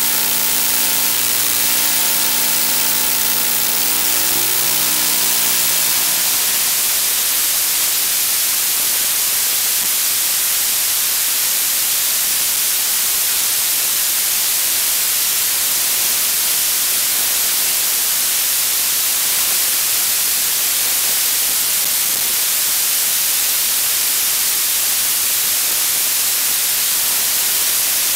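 Steady loud static hiss from the audio channel of an analog FPV video receiver recording, with no sound from the drone itself. A set of steady low hum tones fades out in the first few seconds.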